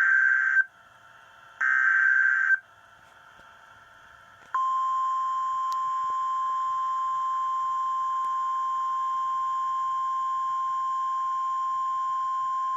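NOAA Weather Radio emergency alert: the last two of the three SAME digital header bursts, each about a second long, then from about four and a half seconds in the steady 1050 Hz warning alarm tone, held without a break. It signals a severe thunderstorm warning from the National Weather Service.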